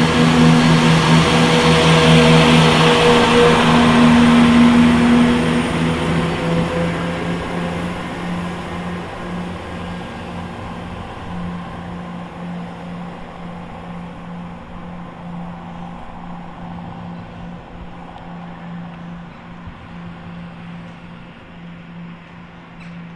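Class 170 Turbostar diesel multiple unit pulling away from the platform, its underfloor diesel engines making a steady drone. A higher engine tone drops out about five seconds in, and the sound then fades steadily as the train moves off into the distance.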